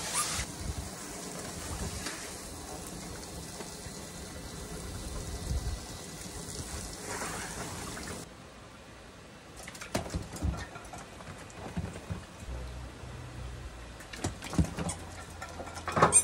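Steady hiss of water spraying from a hose onto the wet floor of a shallow above-ground pool, which cuts off suddenly about halfway through. After that come scattered splashes and pattering of dogs' paws running through the shallow water.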